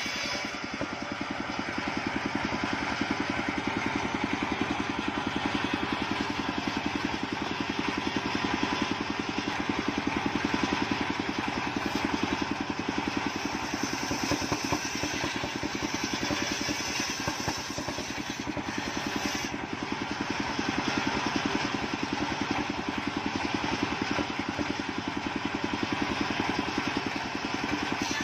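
Engine-driven circular saw rig running steadily, its large blade ripping long sengon boards lengthwise, with the engine's fast even pulsing unbroken throughout.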